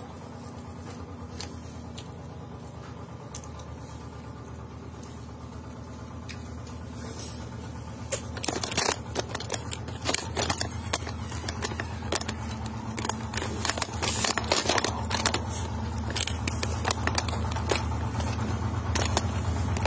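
A knife cutting mango peel with faint light ticks over a low hum, then, about eight seconds in, loud crackling, clicking and rubbing as the phone is picked up and its microphone brushes against clothing.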